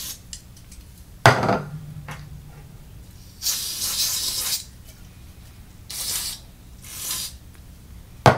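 Aerosol lubricant sprayed in short hissing bursts, the longest about a second, into a guitar pedal's footswitch; two sharp clicks, one a little over a second in and one at the end.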